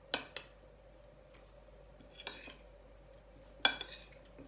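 Metal spoon clinking and scraping against a ceramic plate while scooping pieces of fried tofu and pork, in three short bursts: just after the start, a little past two seconds, and near the end.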